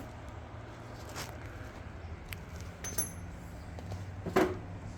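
Small metal clinks and taps from parts and tools being handled during work on a mower's PTO clutch. One clink rings briefly about three seconds in, and a louder knock comes near the end, over a low steady hum.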